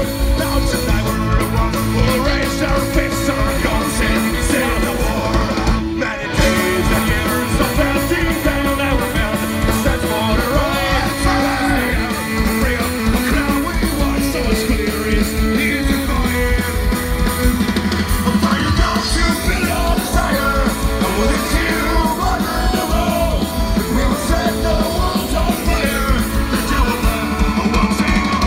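A live rock band playing through a stage PA, recorded from the crowd: electric and acoustic guitars, bass, drums and fiddle with a male lead singer. The band stops for a split second about six seconds in, then carries on.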